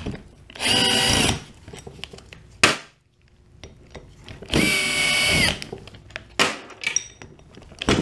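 Power drill with a T30 five-lobe Torx bit spinning out the already-loosened bolts of an AVCS cam pulley. There are two runs of steady motor whine of about a second each, the first just under a second in and the second about halfway through, with a sharp click between them and a few short blips near the end.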